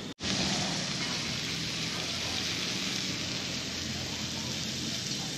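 Meat sizzling on a griddle over a gas camp burner: a steady frying hiss that cuts in abruptly just after the start.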